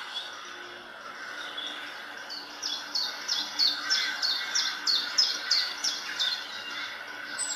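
A songbird singing a run of about a dozen quick notes, each sliding down in pitch, about three a second, starting about two seconds in and tailing off near the end.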